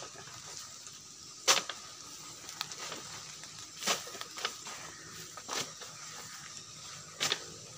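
A long pole jabbed up into a banana plant during harvest, striking it with four sharp knocks about every two seconds, the first about a second and a half in.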